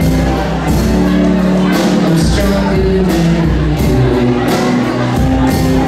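Live rock band playing a song: electric guitars, acoustic guitar, bass guitar and drums, with cymbal and drum hits and a male lead vocal.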